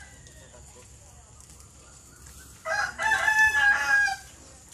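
A rooster crows once, a single call of about a second and a half that starts a little past halfway.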